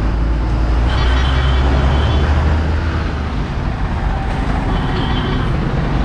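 Highway traffic going past, an auto-rickshaw and a truck among it, with a steady low rumble.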